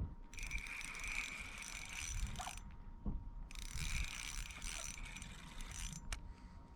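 Fishing reel being cranked to bring in a hooked fish: two stretches of whirring, each about two and a half seconds, with a short pause between.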